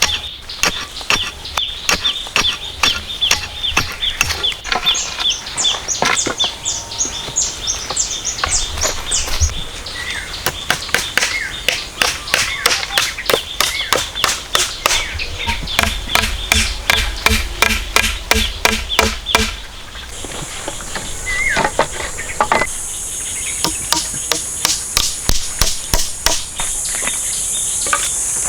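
Repeated hand-tool strikes, about two to three a second, as in chopping or digging at a building site. Insects buzz steadily behind them and a few bird chirps come early. A louder, high insect buzz sets in about two-thirds of the way through.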